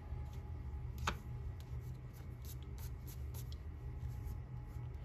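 Quiet handling of paper and a craft punch on a cutting mat: faint rustles and small ticks, with one sharp click about a second in, over a steady low hum.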